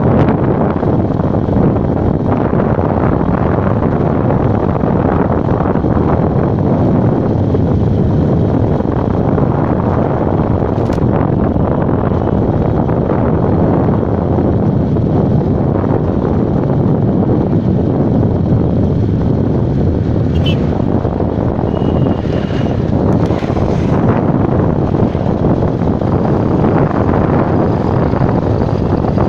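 Loud, steady wind rush on the microphone mixed with the road and engine noise of a vehicle travelling along a highway.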